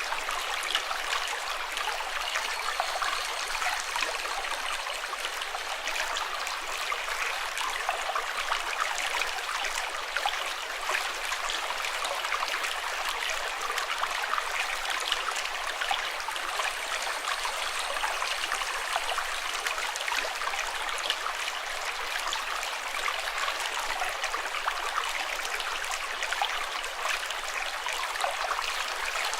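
Running water flowing steadily, an unbroken rush of small splashes and trickles like a stream.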